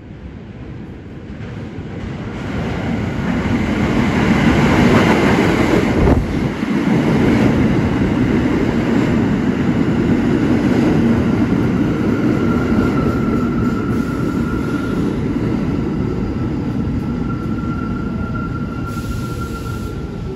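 R46 subway train pulling into an underground station and braking along the platform. The rumble of wheels and motors builds over the first few seconds, with a single knock about six seconds in. A steady high squeal joins about halfway through, and the motor pitch falls as the train slows to a stop near the end.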